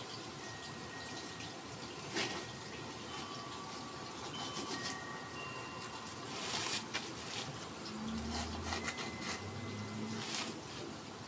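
Sandpaper rubbed by hand along a forest red gum didgeridoo: a steady soft hiss with a few louder strokes. Faint, scattered chime-like ringing tones run underneath, and a low hum comes and goes near the end.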